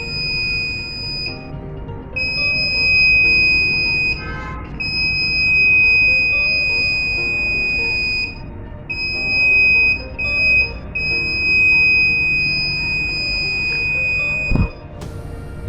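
Piezo buzzer of an Arduino flame-sensor fire alarm sounding a steady high-pitched tone, set off when the flame sensor detects a flame. It sounds in long stretches that cut out and restart about five times, and a low thump comes near the end.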